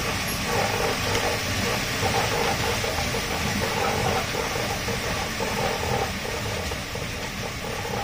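Dog treadmill running with a dog trotting on it: a steady rushing, rumbling mechanical noise with a quick, uneven pulsing.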